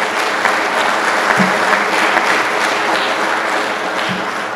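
Audience applauding steadily, dense clapping from many hands in a large room, dying away near the end.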